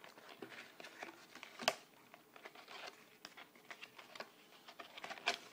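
Light handling sounds: faint rustling and scattered small clicks and taps as small knives and their packaging are handled, with a sharper click a little under two seconds in and another near the end.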